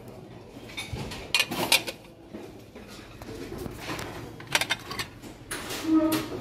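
Ceramic plates clinking and knocking against each other as they are handled and lifted from a stack on a store shelf. The clinks come in a few short clusters: about a second and a half in, again past the middle, and near the end.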